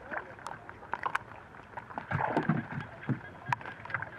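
Water splashing and dripping as a gill net is hauled by hand up out of muddy floodwater over the side of a small boat, with scattered sharp clicks and knocks. The splashing is loudest about two seconds in.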